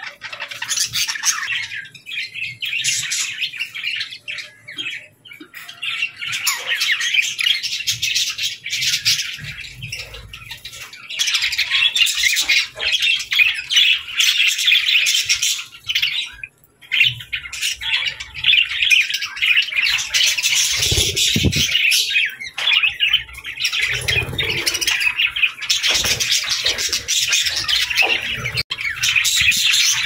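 A flock of budgerigars chattering and warbling continuously in a dense stream of chirps and squawks, broken by a short gap about halfway.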